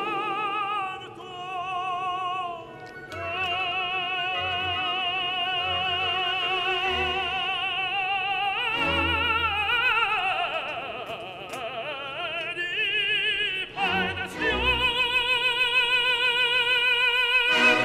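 Background music: an operatic voice singing long held notes with a wide vibrato.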